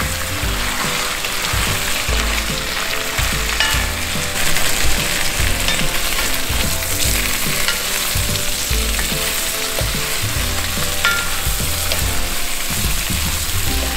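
Shrimp and sausage frying in butter and olive oil in a pan turned up to a higher heat, a steady sizzle.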